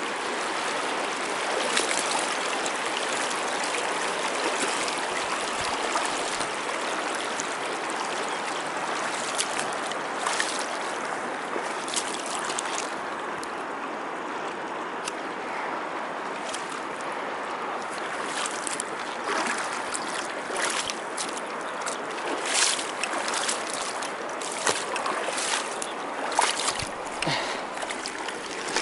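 Shallow stream water rushing steadily over rocks. Through the second half, a scatter of short clicks and knocks cuts in over the flow.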